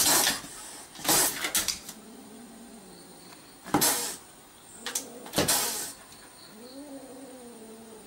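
Kitten hissing in four short bursts, with a light tap between them and a low, drawn-out meow near the end.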